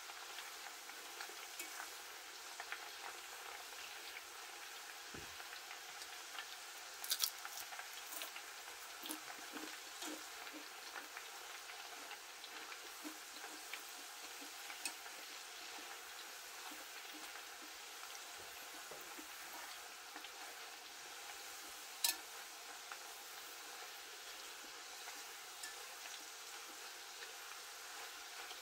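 Plantain strips deep-frying in hot oil: a steady sizzle with fine crackling. A few sharp clicks from the metal fork touching the pot as the pieces are turned, the loudest about seven and twenty-two seconds in.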